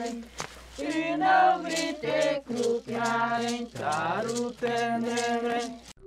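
Krenak men and women singing a traditional chant together in their own language, in short repeated phrases with brief breaks for breath.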